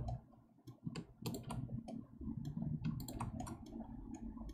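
Irregular clicks of a computer mouse and keyboard as the 3D view is orbited and zoomed: mouse-button presses and scroll-wheel notches.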